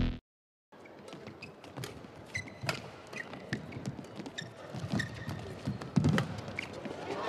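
Badminton doubles rally: a feather shuttlecock struck back and forth by rackets in sharp, irregular pops, with shoes squeaking on the court over a low arena background. An electronic music sting cuts off at the very start.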